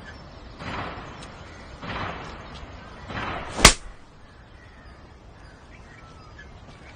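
A single sharp slap across a face about three and a half seconds in, the loudest sound here, after three short noisy swells. Faint bird chirps follow.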